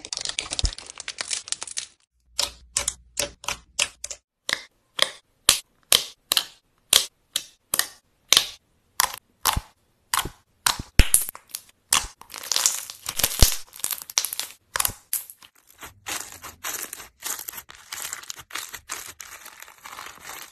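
Hands pressing and squishing slime, giving crisp crackling pops: a rapid run of separate pops, two to four a second, with denser crackling at the start and near the end.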